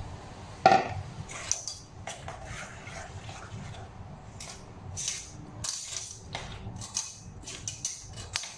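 Metal spoon clanking against a stainless steel mixing bowl, one sharp ringing knock just under a second in, then irregular light clinks and rustles as diced eggplant mixture is stirred and turned in the bowl.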